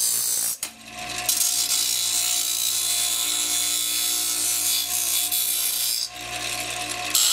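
Grinder wheel grinding a piece of non-magnetic stainless steel for a spark test, a harsh steady grinding hiss over the motor's hum. It breaks off briefly about half a second in and again near six seconds.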